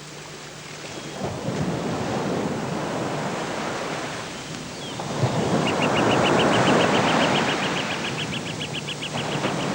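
Garden fountains and cascades rushing and splashing, a steady noise that swells and shifts about five seconds in. Over the second half, a fast, even run of high chirps, about ten a second.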